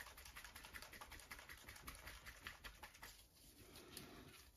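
Faint, rapid, irregular clicking and ticking from a small bottle of enamel wash being shaken and handled in nitrile-gloved hands.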